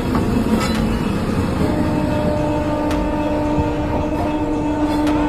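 Indian Railways train running, with its horn sounding one long steady blast that begins about a second and a half in.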